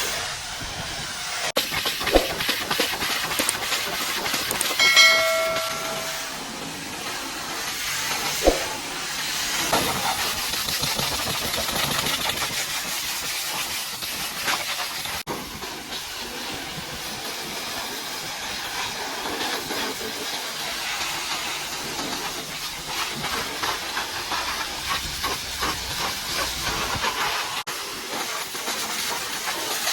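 Pressure washer jet spraying water against a truck's body, a steady loud hiss of spray. A few sharp knocks come through, and about five seconds in there is a brief whistling tone.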